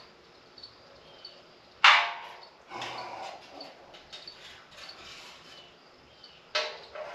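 A thin metal rod rattling and scraping inside an empty stainless steel beer keg, with small clicks and two louder ringing clanks, one about two seconds in and one near the end.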